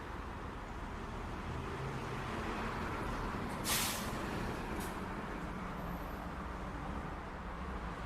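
City street traffic: a steady wash of passing vehicles, with a short, sharp hiss about halfway through and a fainter one a second later.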